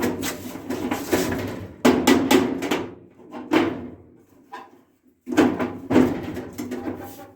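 Heavy banging on a sheet-metal toolbox: a few hard blows, each followed by clattering and a ringing tail, with loud hits at the start, about two seconds in and again past five seconds.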